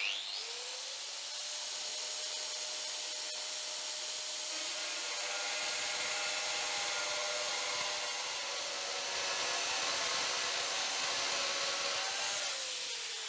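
Metabo PFM17 weld bead remover's electric motor speeding up within the first half second, then running steadily with a high whine while its carbide-insert cutter head mills off a weld bead with a hissing cutting noise. About a second before the end it winds down, its pitch falling.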